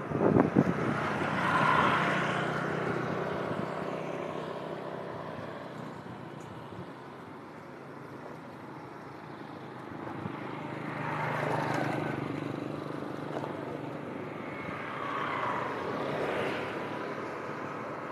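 Motorbike and scooter engines passing along a street, the traffic noise swelling and fading about three times, with a few sharp knocks right at the start.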